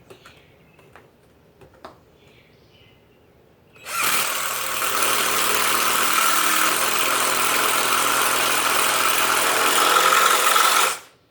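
Power drill driving a large wood screw into a log, starting about four seconds in, running steadily for about seven seconds and stopping suddenly as the screw seats.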